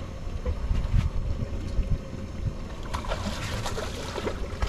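Wind buffeting the microphone on an open fishing boat, a low rumble with heavy thumps. About three seconds in comes a short, crackling burst of rustling noise lasting just over a second.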